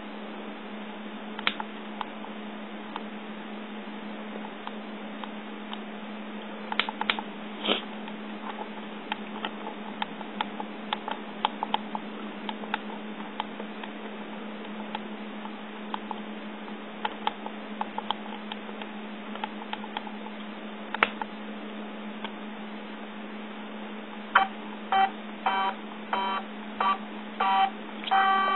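Yongnuo YN568EX speedlite flash: scattered clicks from its buttons or handling over a steady low hum, then, from near the end, a run of short repeated electronic beeps, about two a second.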